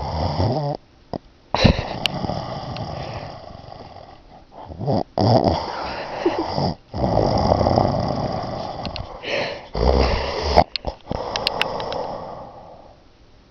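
Snoring: about six long, noisy breaths in a row, each lasting one to three seconds, with short quiet gaps between them.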